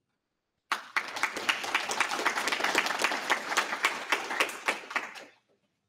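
Audience applauding: many hands clapping, starting about a second in and fading out near the end.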